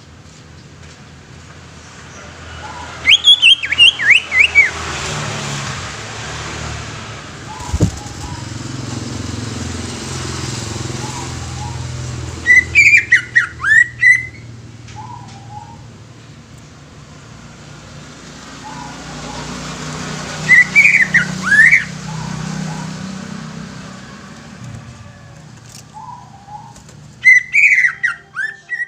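Cucak ijo (green leafbird) singing: four bouts of loud, quick, gliding whistled phrases, one about every seven to eight seconds, with fainter short calls between them, over a low background rumble.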